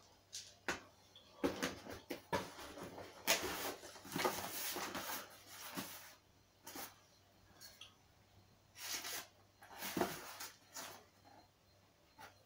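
Cardboard boxes being handled: rustling, scraping and scattered knocks as a small taped carton is lifted out of a larger shipping box, with the densest rustling about two to six seconds in.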